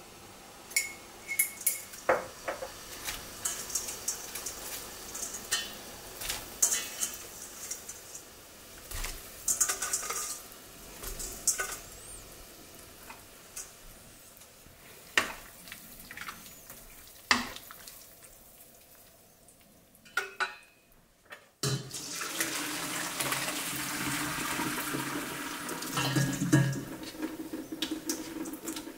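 Scattered clinks and knocks of a glass jar and kitchenware as salt is added to a pot of boiling water. About two-thirds of the way in, a steady rush of water starts and runs on: water pouring into a stainless-steel colander of blanched broccoli in the sink.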